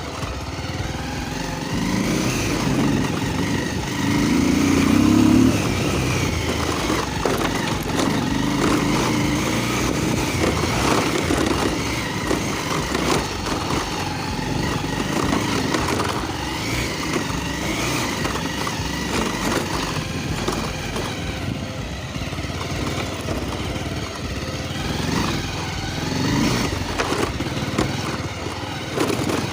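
Motorcycle engine running under way on a rough road, its revs rising and falling with the throttle; it is loudest about four to five seconds in.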